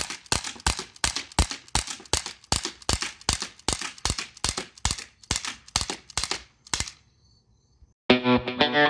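Colt M45 CO2 BB pistol firing a rapid string of about twenty shots, roughly three a second, stopping about seven seconds in. Music starts near the end.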